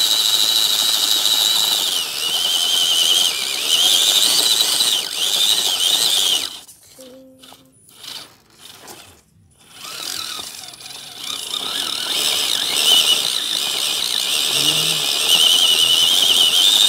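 Electric drive motor and gearbox of an RC scale crawler whining under load as it climbs a dirt bank, the pitch wavering with the throttle. The whine stops for about three seconds partway through, then picks up again and grows louder.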